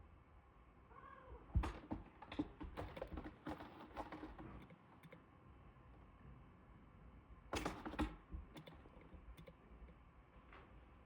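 Small birds pecking and tapping at a window-mounted feeder: irregular quick clicks in two bouts, starting about a second and a half in and again around seven and a half seconds.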